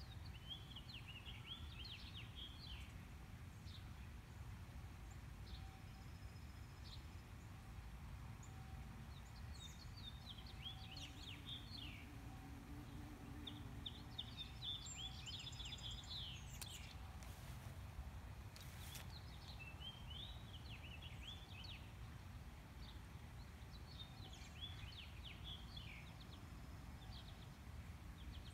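Small birds chirping in short repeated bursts over a steady low background rumble, with a couple of faint clicks midway.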